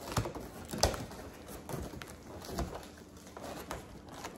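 Scissors cutting open a cardboard box: a few irregular sharp snips with cardboard scraping and rustling.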